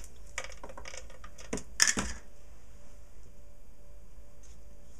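Paper and craft supplies handled on a cutting mat: a quick run of rustles and taps in the first two seconds, the loudest just before two seconds in, then only a faint steady room hum.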